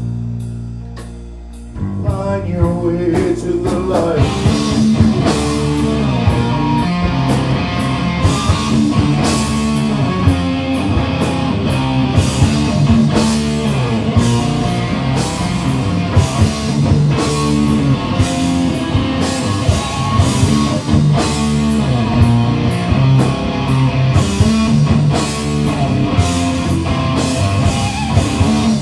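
Live rock band playing an instrumental passage of a song. A held chord fades for a couple of seconds, then drums, guitar and bass come back in together at full volume with a steady beat.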